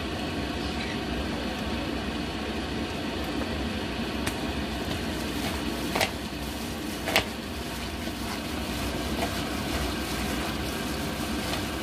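A plastic-gloved hand tossing vegetables with gochujang in a plastic bowl, over a steady background hum; two sharp clicks about six and seven seconds in.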